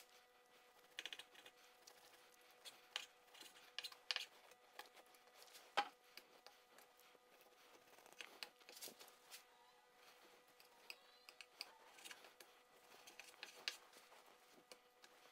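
Faint knife-work on a wooden cutting board: a knife slicing through raw beef, with scattered light clicks and taps of blade and meat on the board and one sharper knock about six seconds in.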